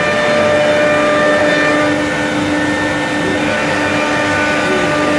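An XQ2165 CNC composite-panel router running, giving a steady machine whine of several held tones over a noisy hum, with a lower tone joining about one and a half seconds in.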